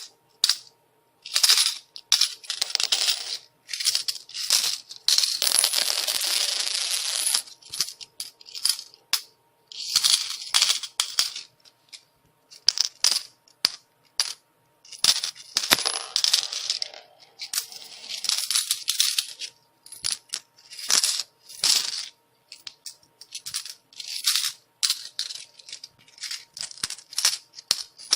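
Metal coins falling and clattering, in irregular showers of bright clinks lasting up to a couple of seconds with short gaps between them.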